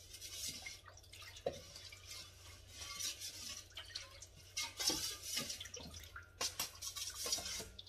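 A ladle stirring thin rice-flour batter, the liquid sloshing in several short bursts with light clinks of the ladle against its container.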